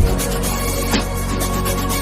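Background music with electronic drums and a deep bass line.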